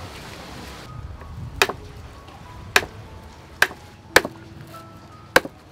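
Five sharp, irregularly spaced chops of a knife or cleaver coming down on a thick wooden chopping board.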